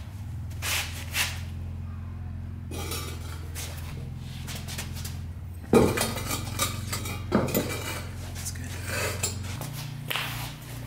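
Metal clanking as bare 5.3 LS V8 engine blocks are handled and set down onto aluminum wheel-scale pads, with a loud knock about six seconds in followed by several smaller clinks. A steady low hum runs underneath.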